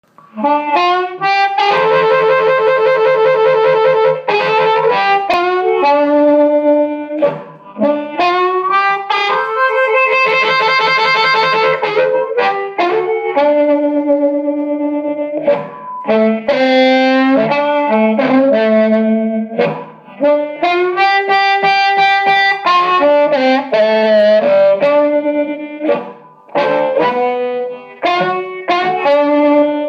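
Electric guitar played through a small Oahu Tonemaster amplifier: single notes and chords, several sliding up into pitch and held for a second or two, with short breaks between phrases.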